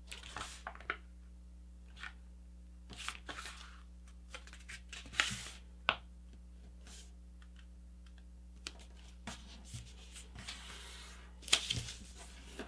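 A sheet of printer paper being folded and creased by hand: intermittent rustling and short crisp swipes as the folds are lined up and pressed flat. The loudest rustles come about five seconds in and near the end.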